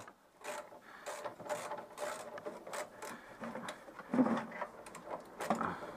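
Ratchet wrench clicking in quick, uneven runs as a 17 mm engine-mount bolt on a Citroën 2CV is run in by hand, not yet tightened, with a duller metal knock about four seconds in.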